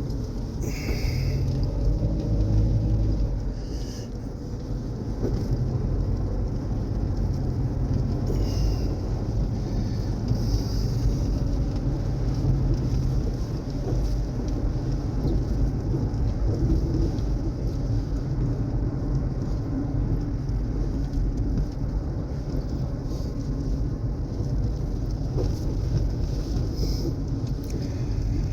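A vehicle driving along: a steady low rumble of engine and road noise.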